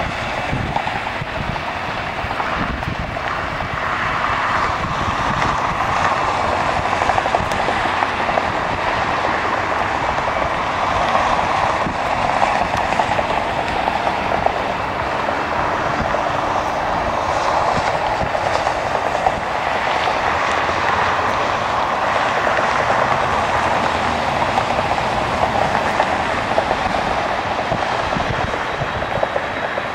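Jet engines of airliners on the airport runway, heard at a distance as a steady rushing drone that swells and eases over several seconds.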